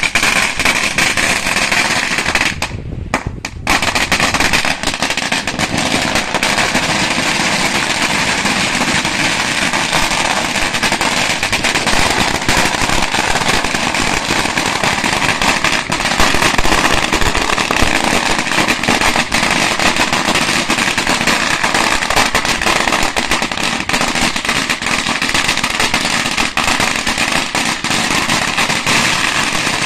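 A long string of firecrackers going off along the ground in a continuous, rapid crackle of bangs, broken only briefly about three seconds in.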